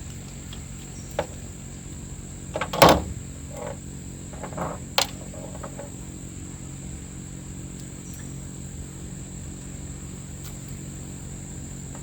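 Handling noise from taking a broken plastic recoil starter pulley off a chainsaw: a few light clicks and knocks, the loudest about three seconds in, over a steady low hum and a high thin tone.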